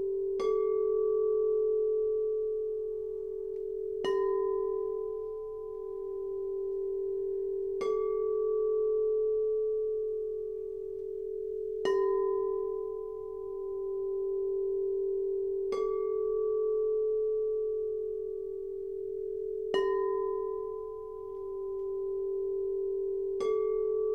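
Pressed quartz crystal singing bowls tuned to 432 Hz, struck seven times about four seconds apart. Each strike's steady ringing tone overlaps the last, and the sound swells and fades between strikes.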